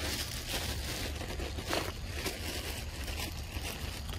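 Rustling, crackling noise with many small clicks over a low steady rumble.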